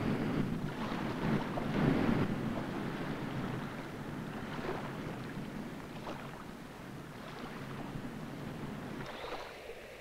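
Sea waves washing and breaking against shoreline rocks, a rough wash that swells strongest in the first two seconds and then slowly eases.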